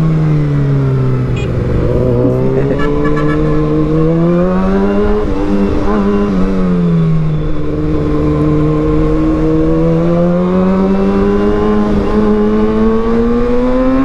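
Kawasaki ZX6R 636's inline-four engine through an aftermarket Austin Racing GP1R exhaust while riding, its note rising and falling with the throttle. It dips in the first second or so, climbs hard from about two seconds in to a peak near six seconds, falls back, then climbs slowly again toward the end.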